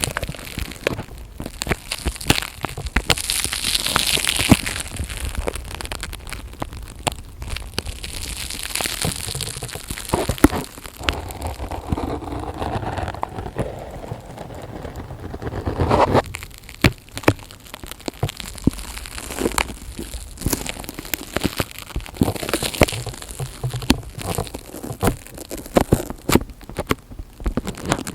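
Close-miked ASMR crackling and crinkling: dense sharp clicks and rustling swells from something handled right against the microphone.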